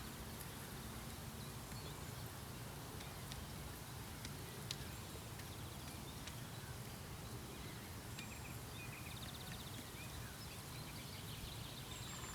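A black woodpecker pecking at wood: a few sharp, irregular knocks spaced seconds apart over steady low background noise, with faint high calls of small birds in the last few seconds.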